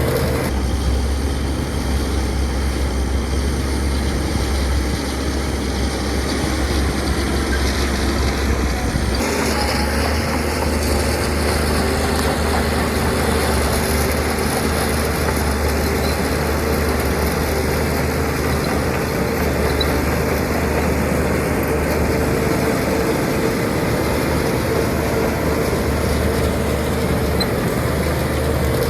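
Heavy diesel earthmoving machinery engines running steadily with a deep low hum. The sound changes abruptly about half a second in and again about nine seconds in.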